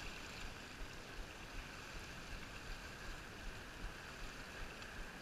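Steady wash of ocean surf, a faint even hiss with a few small ticks.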